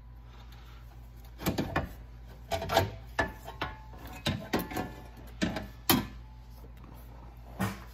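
Truck air box tray being worked loose and lifted out of the engine bay: a series of irregular hard knocks and clatters as it is pulled and jostled against surrounding parts, over a faint steady low hum.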